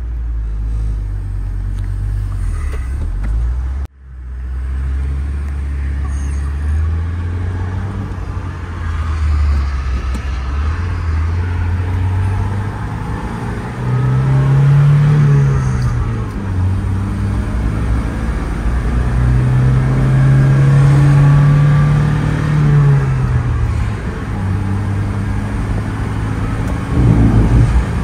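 Cab-interior sound of a 1995 Nissan D21 truck being driven, its engine running under way with road noise. The engine pitch rises and falls as it accelerates and eases off, twice in long sweeps later on, with a brief dropout about four seconds in.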